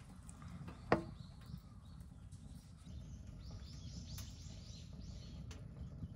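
A single sharp knock about a second in, then a small bird calling a quick run of repeated high, falling chirps, over a steady low outdoor rumble.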